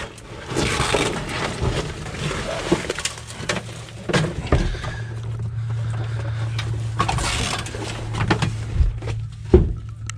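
Old car carpet and its padding being pulled and torn up off the floor pan: irregular scraping, tearing and rustling with a few sharp knocks.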